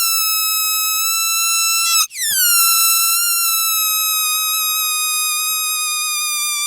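A shrill, buzzy high-pitched tone held steadily and sinking slowly in pitch. It cuts out for an instant about two seconds in, then starts again a little higher and slowly sinks again.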